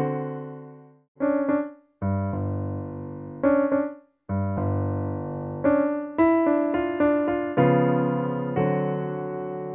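Solo piano playing a slow instrumental piece. A chord dies away, a short phrase follows, then held chords with notes struck over them, with the music breaking off briefly twice.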